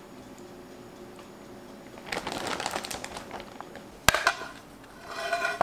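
A stretch of crackling, crinkling handling noise, then one sharp knock about four seconds in as a metal baking tray of roast pork ribs is set down on a wooden trivet.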